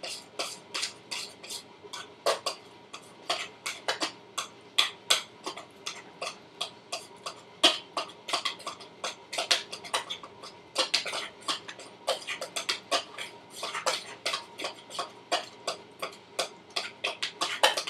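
A kitchen utensil stirring cake batter in a mixing bowl, clinking and scraping against the bowl in quick irregular strokes, about two or three a second.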